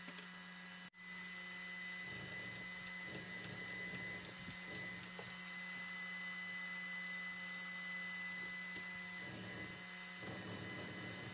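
Steady hum with a thin high whine, with faint uneven scraping or rubbing sounds over it.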